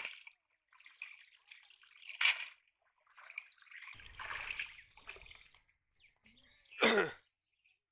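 Water splashing and dripping from a cast net full of thrashing fish as it is gathered up and lifted out of shallow water, with a sharp splash about two seconds in. Near the end comes one short vocal sound that falls in pitch.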